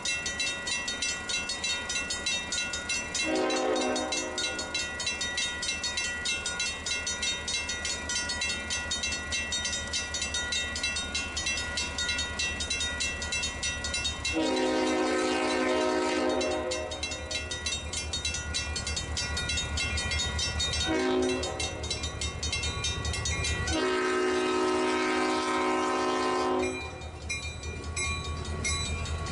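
A diesel locomotive's air horn sounding four blasts for a grade crossing, two short and two long, over the steady ringing of the crossing's warning bell. The locomotive's engine rumble grows as the train comes up to the crossing near the end.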